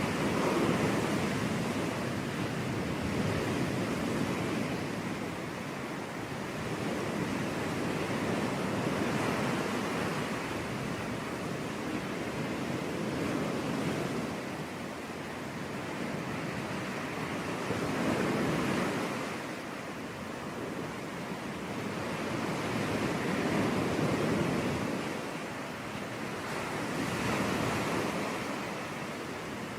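Caribbean surf: waves breaking and washing on a beach as a steady rush that swells and falls back every several seconds.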